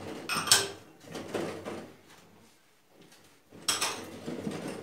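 Dishes clinking and knocking in a kitchen sink as they are washed by hand: a couple of sharp clatters about half a second in, lighter knocks after, and another clatter near the end.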